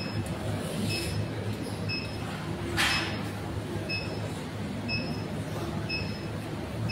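Room tone of a hall: a steady low hum, with a short hiss a little under three seconds in.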